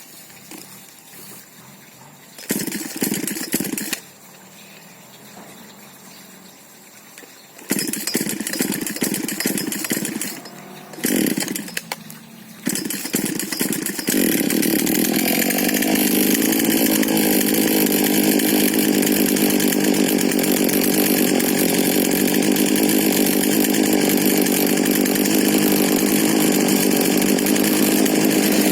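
Husqvarna 125 40cc mini chainsaw engine being started: a few short bursts of running that die away in the first half, then it catches about halfway through and runs steadily.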